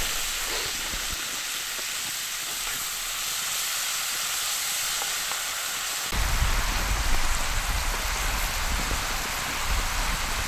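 Onions frying in a cast iron pan with snow melting into them, a steady sizzle and hiss. About six seconds in, a low rumble comes in abruptly under the sizzle.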